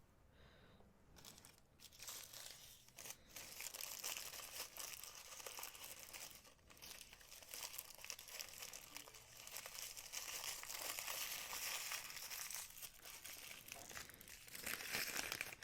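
Packaging wrap being handled and crinkled, in irregular rustles with brief pauses, as an item is unwrapped.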